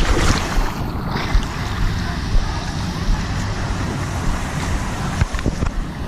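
Steady rush of wave-pool water with wind buffeting the microphone, and a few short knocks.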